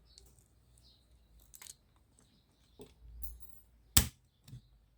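Scattered small plastic clicks and taps from the side mirror's clips and housing being worked by hand, with one loud sharp snap about four seconds in.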